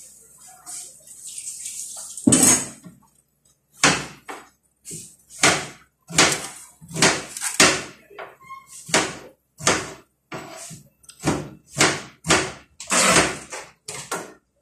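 A long run of sharp knocks or bangs, irregular, roughly two a second, starting a couple of seconds in; before them a faint hiss.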